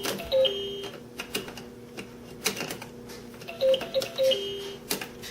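LeapFrog Fridge Phonics toy handled by a child: repeated plastic clicks and clacks from the letter piece and press button, with a few short electronic beeping notes from the toy's jingle.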